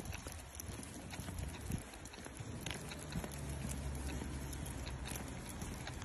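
Footsteps of a walk on wet pavement, with scattered light taps, over a low steady rumble.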